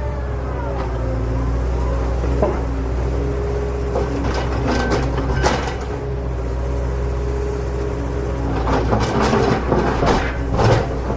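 A vehicle engine running steadily, with background music and scattered knocks that cluster near the end.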